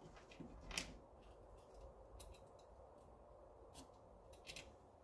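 Faint, scattered metallic clicks and ticks of bicycle wire spokes knocking against each other and the hub as they are threaded into a wheel during lacing, the sharpest about a second in.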